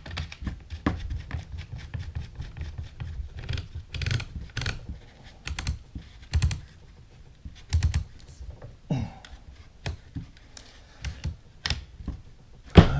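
Irregular small metal clicks, taps and scrapes as the barrel of a Franchi Affinity 3 shotgun is worked onto the receiver, with a louder sharp click near the end as it goes home.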